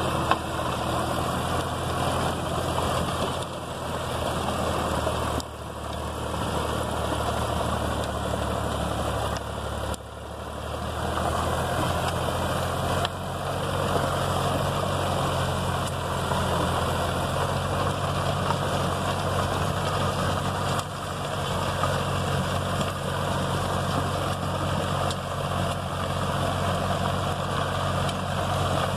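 Diesel tractor engine running steadily under load while driving a rotavator that churns the soil. The rotavator adds a rough, steady noise over the engine's low drone, which dips briefly a few times.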